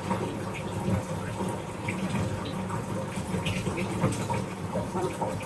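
Water running steadily from a tap into a bathtub as it fills.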